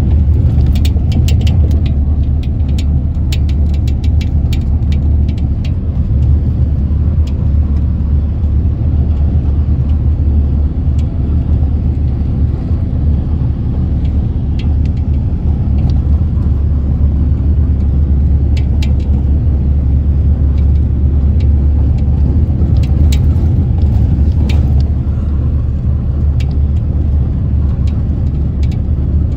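Steady low rumble of a moving vehicle heard from inside it, with scattered sharp clicks and rattles, thickest in the first few seconds and again near the end.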